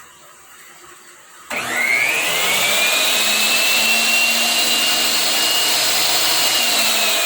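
Oxford 1800-watt 10-inch miter saw switched on about a second and a half in: its motor and blade whine up to full speed and then run free at a steady pitch, starting to wind down near the end as the trigger is released.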